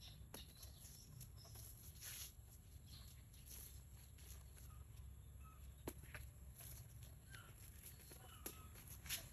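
Near silence: faint outdoor ambience with a few soft clicks and some faint, short chirps.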